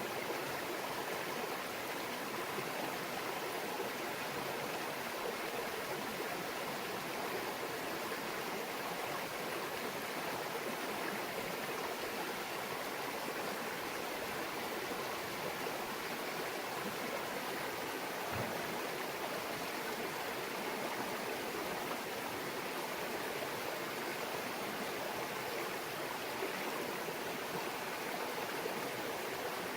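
Small mountain stream babbling and trickling steadily over rocks, with a faint low thump about two-thirds of the way through.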